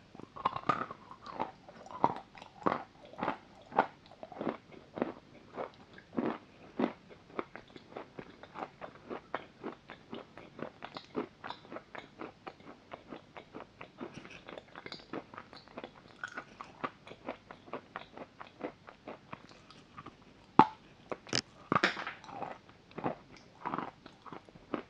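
Crunching and chewing of bitten-off pieces of a block of white chalk, close to the microphone: a steady run of short, sharp crunches, a couple to a few a second, with a louder fresh bite a few seconds before the end.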